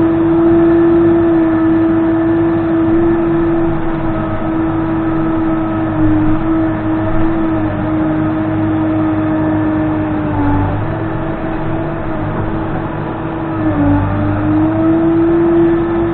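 Case 580N backhoe loader's diesel engine running steadily at working revs, its pitch dipping briefly twice in the second half as it takes load.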